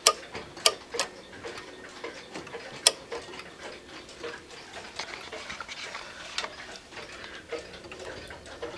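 Escapement of a 1970s Emperor chain-driven grandfather clock with a Hermle movement, ticking steadily as the pendulum swings. A few louder clicks stand out, the loudest near the start and about three seconds in.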